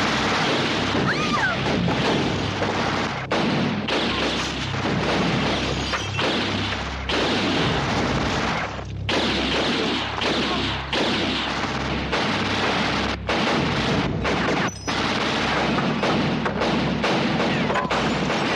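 Film-soundtrack gunfight: near-continuous gunfire with heavy booms and crashes, cut off briefly and suddenly several times.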